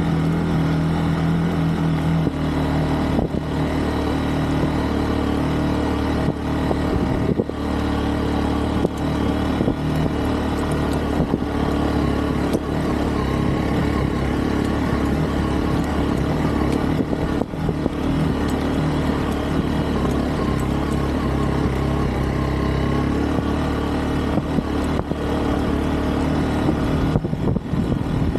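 Hero Xpulse 200 4V's single-cylinder engine running steadily under way on a rough, rocky dirt track, holding an even pitch throughout.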